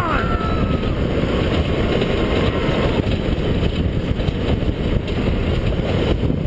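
Steady rush of wind on the onboard microphone mixed with the rumble of a gravity soapbox cart's hard wheels rolling down an asphalt road.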